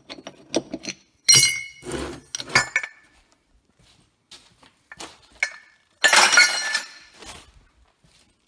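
Pieces of scrap metal clattering and clinking as they are handled and dropped, with a loud ringing clatter about a second in and a longer one about six seconds in.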